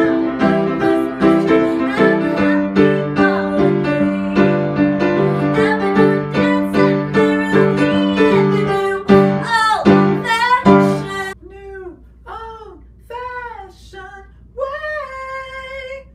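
Upright piano playing a rhythmic chord accompaniment while a woman sings along, her voice wavering on a held note near the end of the phrase. About eleven seconds in the piano stops, leaving a voice singing a few short swooping notes and then one held note.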